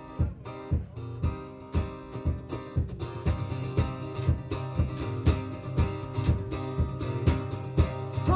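Acoustic guitars strummed in a steady, even rhythm, playing the live instrumental intro of a folk-rock song. The playing grows fuller about three seconds in.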